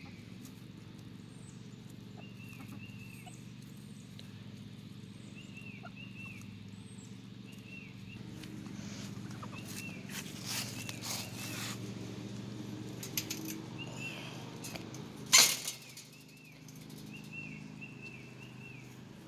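Short high chirps from a bird, repeated in small groups every second or so, over a steady low hum. There is some knocking and rattling of handling about ten seconds in, and one sharp knock about fifteen seconds in.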